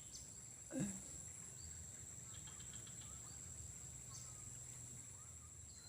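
Faint, steady high-pitched insect chorus from crickets, with a short sound falling in pitch about a second in.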